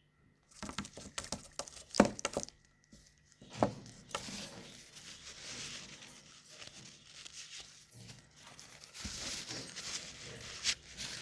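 Close rustling and crinkling with a quick run of sharp clicks and knocks in the first few seconds, from a cockatiel chick being handled and moving about during syringe feeding.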